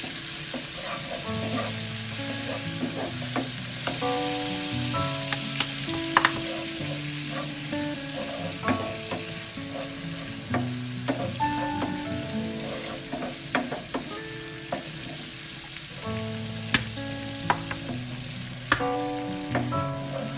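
Shallots, garlic and red chilies sizzling in hot oil in a frying pan while being stirred with a wooden spatula, which scrapes and now and then knocks sharply against the pan. A soft tune of held notes plays underneath.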